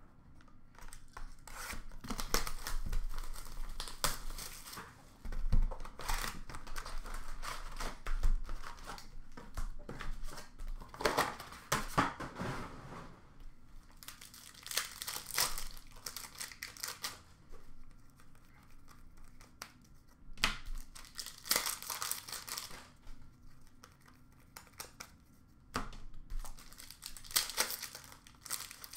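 Hockey trading card pack wrappers crinkling and tearing as packs are ripped open, in repeated bursts of a second or two with quieter gaps between.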